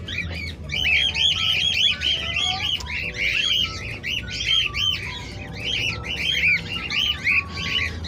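A flock of cockatiels chirping, a rapid, continuous run of short rise-and-fall calls overlapping one another.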